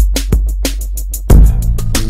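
Background music with a steady beat and deep bass, and a strong bass hit about a second and a half in.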